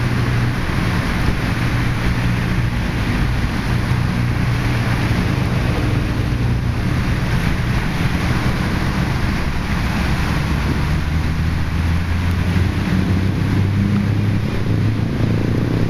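Strong wind buffeting the microphone with a steady low rumble, over the constant wash of choppy waves breaking along the seawall.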